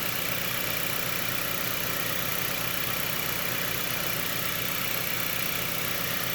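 Steady, unchanging mechanical running noise from a car's engine bay, an even hum and whir at a constant level.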